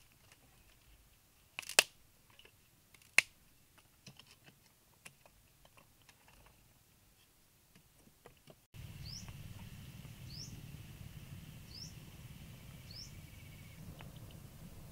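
A few sharp clicks, the loudest a quick double and then a single one a second and a half later. After a sudden change to outdoor ambience, a bird repeats a short rising chirp about every second and a half over a steady high buzz and a low rumble.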